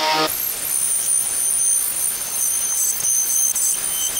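Angle grinder with a twisted-knot wire wheel scouring paint off a steel ammo can: a harsh, even scraping hiss with a high whine over it. It opens with the grinder's steady motor note and switches abruptly to the scraping about a third of a second in.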